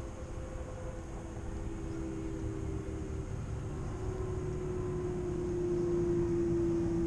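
A distant engine drone over a steady low rumble, growing louder and dropping slightly in pitch over the last few seconds, as of a vehicle or aircraft passing.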